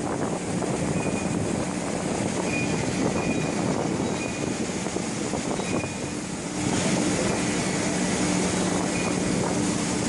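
Industrial vacuum loader truck running its engine and vacuum blower, a steady mechanical drone with a low hum; it grows a little louder and steadier in pitch about two-thirds of the way through.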